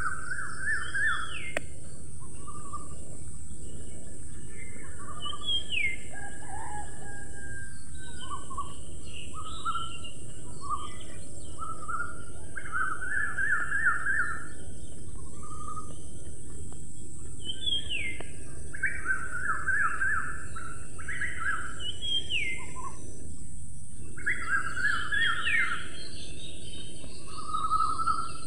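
Birds calling and chirping in short repeated phrases, fast trills and quick upward-sliding notes, over a steady high-pitched hiss.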